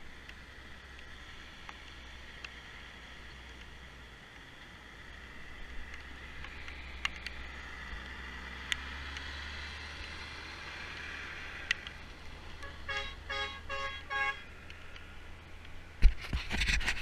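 A bus engine running as the bus drives past on a gravel road, swelling in the middle, then a vehicle horn sounding a quick run of about six short toots about thirteen seconds in. A couple of loud thumps come near the end.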